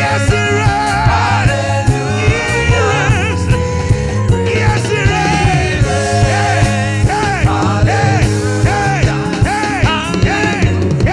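Lively worship band music with a steady drum beat, heavy bass and a wavering lead melody.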